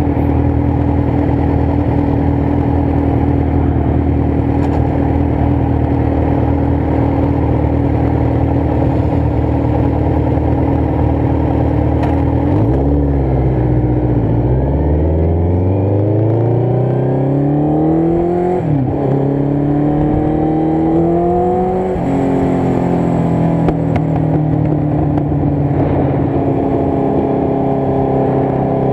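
Motorcycle engine running at a steady speed. About halfway through, the revs dip and then climb, break sharply again and rise, then settle to a steady note: the bike is accelerating through its gear changes.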